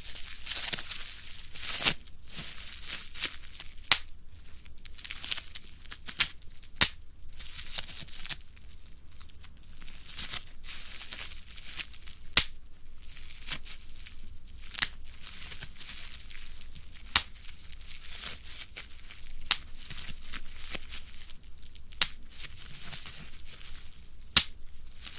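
Plastic bubble wrap being crushed by hand: steady crinkling and rustling of the plastic sheet, with sharp pops at irregular intervals, roughly one every one to two seconds, as single bubbles burst.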